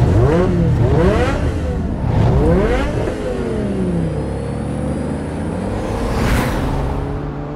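Mercedes-Benz 600 SL's 6.0-litre M120 V12 accelerating, its note climbing in several short runs one after another, then dropping and holding steady. A brief rushing whoosh about six seconds in.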